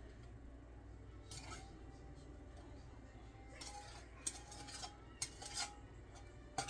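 A utensil scraping and clinking faintly against a stainless steel mixing bowl several times, some clinks with a short metallic ring, as the topping is scraped out of the bowl onto cake batter, over a low steady hum.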